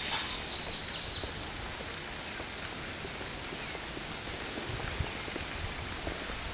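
Steady outdoor hiss of resort-garden ambience, with one short high whistle, a bird call, about a second long near the start.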